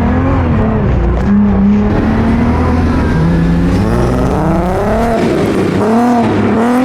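Porsche 928's V8 engine driven hard, first holding a steady pitch and then revving up and down in quick swells about once a second in the second half.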